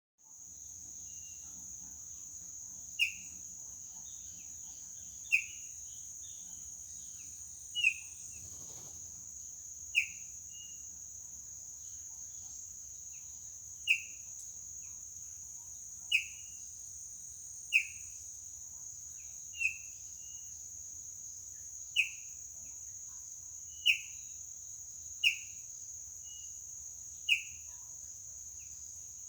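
A bird repeats a short, sharp falling call about every two seconds, twelve times, over a steady high-pitched insect drone.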